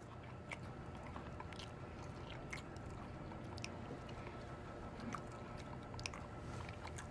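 A man chewing a sandwich: faint, scattered small clicks of eating over quiet room tone.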